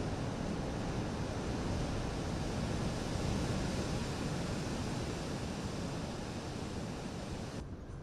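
Surf breaking and washing up a sand beach, a steady rushing noise, with wind on the microphone. Near the end the rush abruptly becomes a duller hiss.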